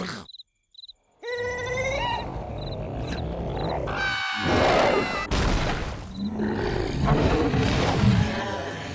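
Cartoon larva vocal effects: a rising wail starts about a second in and becomes a high-pitched scream about four seconds in. It is followed by several seconds of rough, noisy growling.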